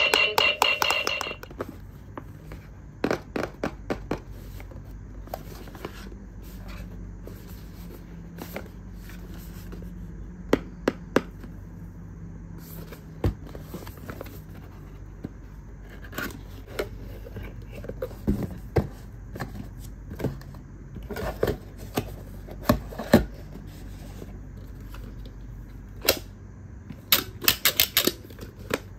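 Hands unboxing a plastic toy: irregular clicks, taps and rustling of packaging and plastic parts, with a quick cluster of clicks near the end.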